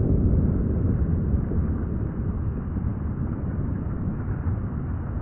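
A deep, noisy rumble that slowly fades, with no separate shots in it: the drawn-out boom of a rifle shot played back in slow motion.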